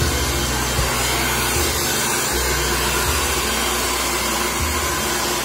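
Handheld hair dryer running steadily, a constant hiss of blown air, while a child's short hair is blow-dried.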